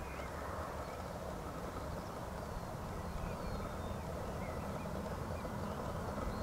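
Steady rumble of a Boeing 747-400 freighter's four jet engines on final approach, growing slowly louder as it nears, with a low hum coming in near the end. Small birds chirp faintly over it.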